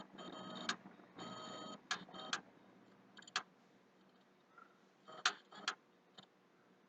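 PlayStation 3 clicking from near its hard drive: short buzzing chirps alternate with sharp clicks for the first two and a half seconds, then single clicks come at wider spacing. The owner takes the clicking, together with slow booting, for a hardware fault, possibly the hard drive.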